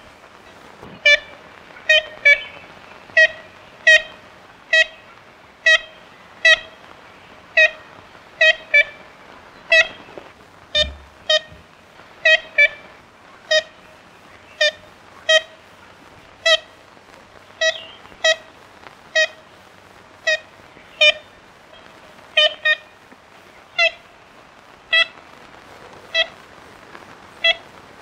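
Ivory-billed woodpecker giving its short nasal 'kent' calls, about one a second and now and then in quick pairs, over the steady hiss of an old field recording.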